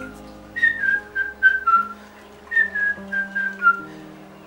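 A whistled tune over soft sustained backing chords: two short phrases of separate notes, each stepping downward in pitch, the first about half a second in and the second about two and a half seconds in.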